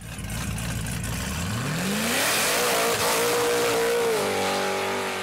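SUV's V8 engine revving up hard and held at high revs during a burnout, with a hiss of spinning tyres over it. The revs ease down slightly about four seconds in.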